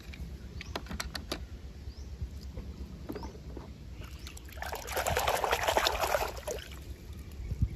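Muddy water in a plastic tub being sloshed and splashed by a hand pushing a toy car through it, loudest for about two seconds just past the middle. A few light clicks come before it.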